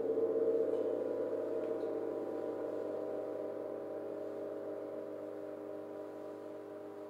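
Gong ringing out: a shimmering chord of sustained tones that swells briefly about half a second in and then slowly fades away.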